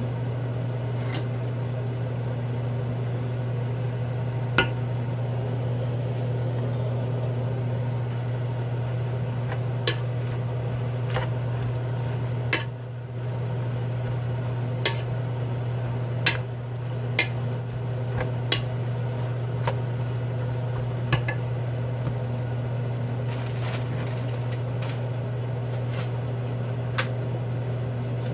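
A steady low hum with scattered sharp clicks and clinks of utensils and dishes during kitchen work.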